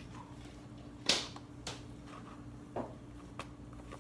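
Cloud slime being handled and stretched, giving a few sharp pops and clicks: one loud pop about a second in, then softer ones.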